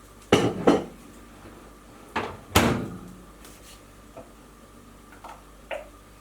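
Two pairs of sharp clunks and knocks about two seconds apart, the second knock ringing briefly, then a few light taps: the microwave door being opened and the bowl being handled. A knowledgeable listener would take this as the curd being checked between heating bursts.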